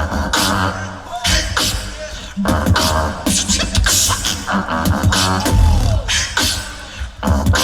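Tag-team beatboxing: deep bass kicks and sharp snare and hi-hat clicks in a fast beat, with sung vocal tones layered over it and a vocal pitch that rises and then slides down about five and a half seconds in.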